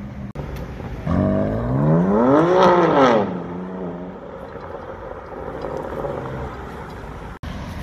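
A car engine revving up hard, its note climbing for about a second and a half and then dropping back, before settling to a lower steady drone under general city traffic.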